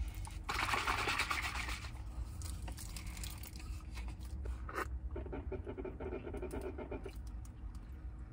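Rustling and scraping as food packaging and a plastic juice bottle are handled inside a car's cabin, with a sharp click near five seconds in, over a low steady rumble.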